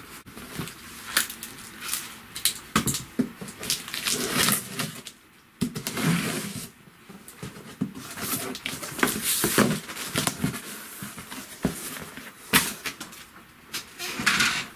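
Cardboard shipping box being opened by hand: packing tape tearing and cardboard flaps scraping and rustling, in irregular crackling bursts with short sharp clicks.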